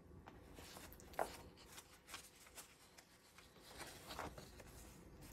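Near silence with faint, scattered rustling and soft handling sounds from a paperback book's pages being turned.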